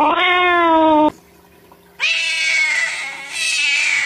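A calico cat yowling one long drawn-out meow that rises then falls, in protest at having its claws clipped, breaking off about a second in. After a short quiet gap comes a second long, higher, slowly falling animal cry.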